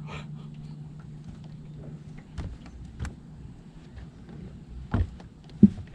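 Electric trolling motor humming steadily, cutting off about two seconds in, followed by a few sharp knocks on the boat, the loudest near the end.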